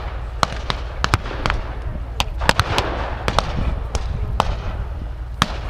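Distant small-arms gunfire: irregular sharp cracks of blanks fired in a reenacted WW2 battle, sometimes two or three in quick succession, over a low steady rumble.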